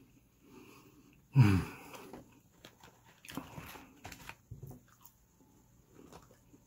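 A man's short, falling groan about a second and a half in, the loudest sound here, then scattered soft mouth noises as he keeps chewing.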